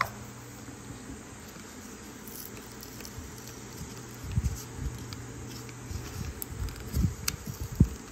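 Clear plastic blister pack and cardboard backing of a small boxed toy being handled and pried apart: a single click at the start, then crinkling and scraping from about four seconds in, with a few sharper crackles near the end.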